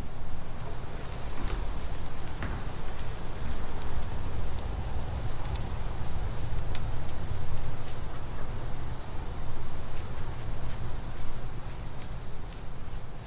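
An insect's steady, high-pitched trill, held unbroken, over a low steady rumble of outdoor ambience, with scattered faint ticks.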